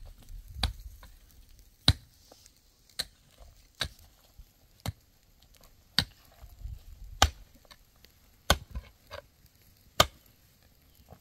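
A metal-headed pick strikes dry, stony soil in sharp, separate blows, about nine of them at roughly one a second.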